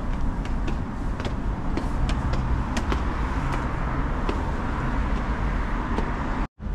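City street traffic noise, a steady rumble of passing cars, with scattered light clicks through it. The sound cuts out abruptly for a moment near the end.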